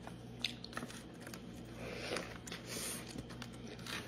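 A person biting into and chewing a mouthful of cheeseburger close to the microphone: soft wet mouth clicks, with a louder stretch of biting and chewing about two seconds in.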